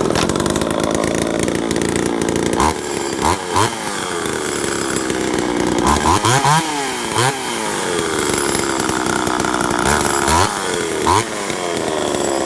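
Small two-stroke engine running at high speed, revved up and down repeatedly. The pitch climbs and falls in quick blips about three, six to seven, and ten to eleven seconds in.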